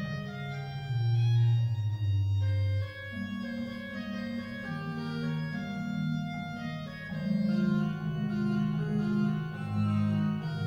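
Small 1987 Josef Maier pipe organ playing slow Baroque music in several voices: held lower notes moving about once a second under a melody line.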